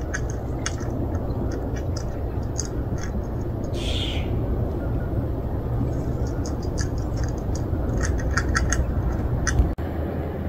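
Birds chirping in short, irregular calls over a steady low outdoor rumble, with one longer, harsher call about four seconds in.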